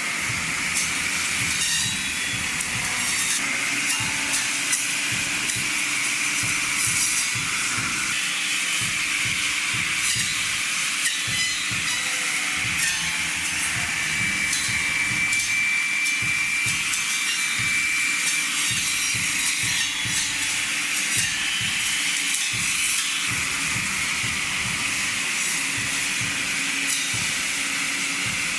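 Heavy machinery running continuously: a steady high hiss with a constant high-pitched whine over an uneven low rumble.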